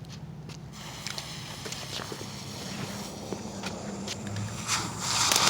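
Consumer firework going off: faint hissing and scattered crackles that build, then a loud rushing hiss near the end as the firework's spray takes off.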